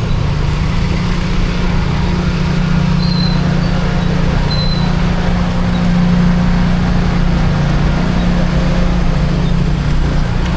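A road vehicle on the move: a steady engine hum under an even rush of road and wind noise.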